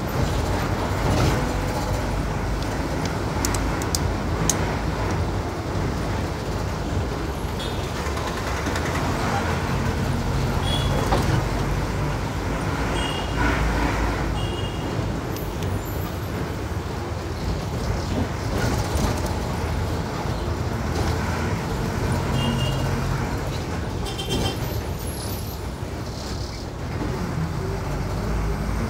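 Diesel bus under way, heard from inside the cabin: the engine runs with steady road and tyre noise, rising and falling a little in level.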